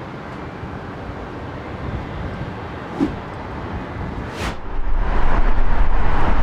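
Jet airliner's engines heard from the ground as it comes in to land. The steady engine noise rises sharply about two-thirds of the way through, with a deep rumble, as the plane draws close.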